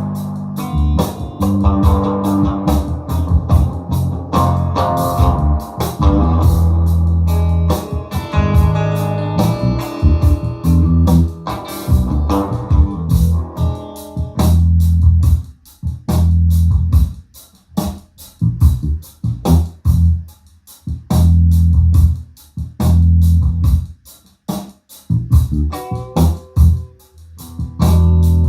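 Guitar-and-bass music with drums played back through a QSC K8 powered PA speaker, with a heavy bass line and regular drum hits; after about 15 seconds the guitar part thins out, leaving mostly bass and drums.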